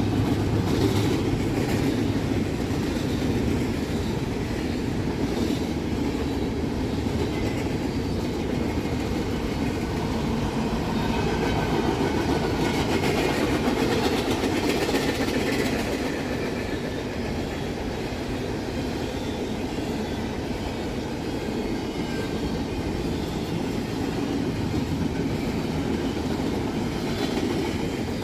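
Freight train cars rolling past at a steady pace, steel wheels running on the rails, with faint high-pitched wheel squeal about halfway through.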